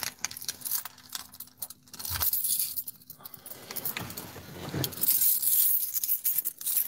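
Scattered clicks and light metallic rattling, with a rush of hiss about five seconds in.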